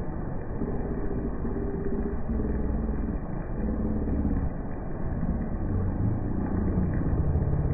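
Motor vehicle engines running and passing on a road in heavy rain, over a steady wash of rain noise.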